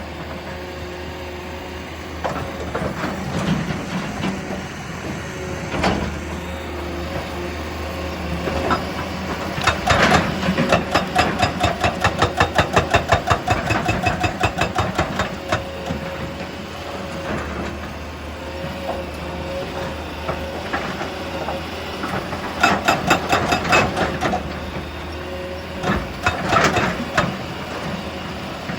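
Heavy machinery running with a steady engine drone, broken by scattered single knocks and two spells of rapid rhythmic clattering, about four to five knocks a second: a longer spell about a third of the way in and a shorter one later.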